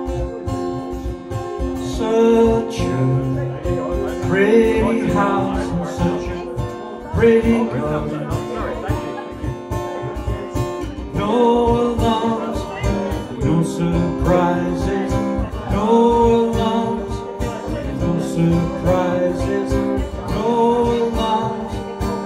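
A man sings to a strummed acoustic guitar, and a cajon, a wooden box drum played by hand, keeps a steady beat under them.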